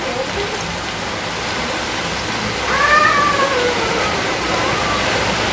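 Battered shrimp sizzling in hot oil in a wok, a steady hiss. About halfway through a cat meows once, a single call that rises and then falls away.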